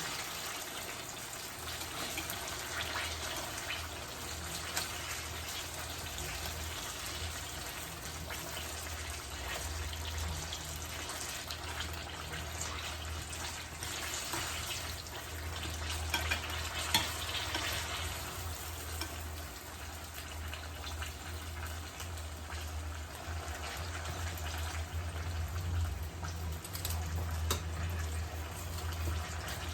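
Turon, spring rolls of plantain and jackfruit, frying in hot oil in a pan: a steady sizzling hiss with a few sharp pops, over a low steady hum.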